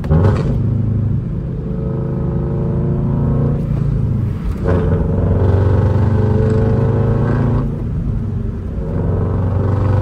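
GR86/BRZ platform's Subaru flat-four boxer engine with Tomei unequal-length headers and no catalytic converter, pulling hard with its uneven boxer rumble. The pitch climbs, drops at a shift about four and a half seconds in, climbs again, eases off near eight seconds, then climbs once more.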